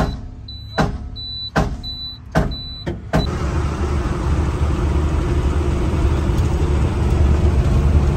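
Truck dashboard ticking and beeping: a sharp click about every 0.8 s with a short high beep between clicks, while the instrument cluster is pulled out. About three seconds in it cuts to the steady low drone of the truck's engine and road noise inside the moving cab.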